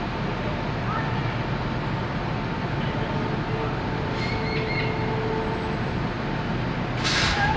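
Steady rumble of street traffic and idling fire trucks. A few bird chirps come about four seconds in, and a short, sharp hiss near the end is the loudest moment.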